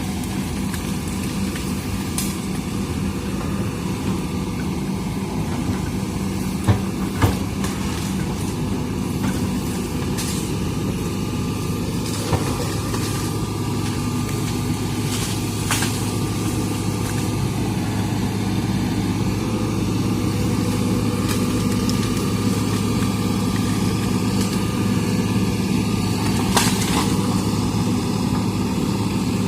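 Hitachi excavator's diesel engine running steadily, with short sharp cracks or knocks now and then.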